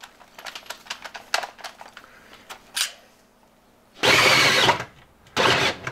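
Light clicks of handling, then a DeWalt cordless drill running a hole saw into a plywood floor in two short bursts, about four seconds in and again just before the end. The drill's battery is giving out.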